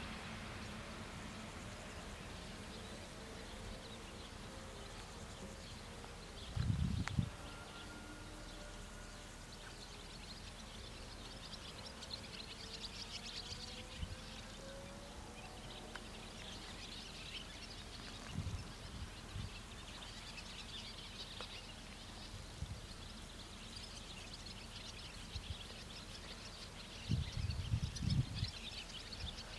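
Quiet rural outdoor ambience with birds chirping, busiest in the second half. Brief low rumbles come about seven seconds in and again near the end.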